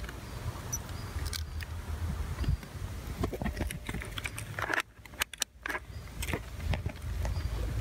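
A steady low rumble with scattered small clicks and rustles from hand-held handling of the camera and multimeter test leads. The sound dips sharply for about a second around five seconds in.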